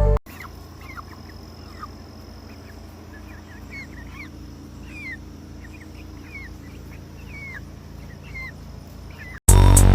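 Chickens calling: many short, high chirps, each falling in pitch, over a steady low hum.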